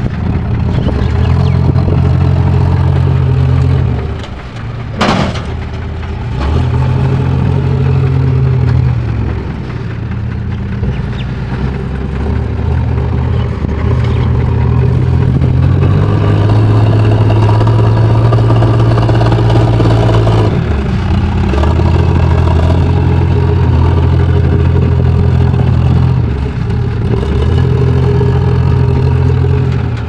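JCB 3DX backhoe loader's diesel engine working the front loader, revs rising and falling as the bucket scoops and lifts soil and broken bricks. A sharp clank about five seconds in.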